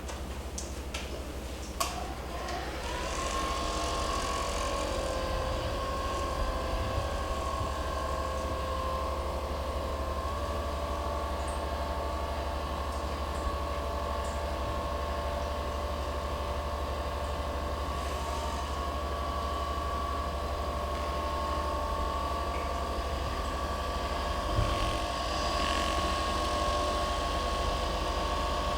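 A small electric motor clicks on, spins up with a rising whine about two seconds in, then runs steadily with an even whine over a low hum.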